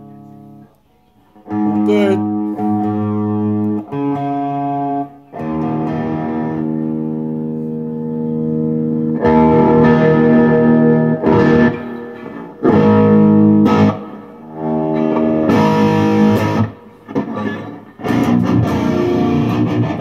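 Electric guitar played through a Peavey XXL TransTube amp head and speaker cabinet: a series of loud ringing chords, each held a second or two and then cut off short.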